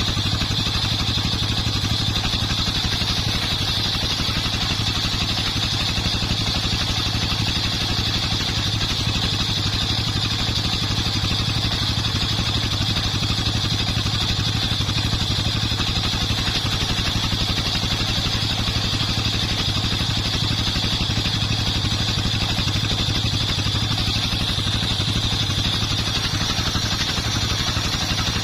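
Engine of a homemade circular sawmill running steadily, with the spinning saw blade ringing high above its hum; it stays even, without pauses.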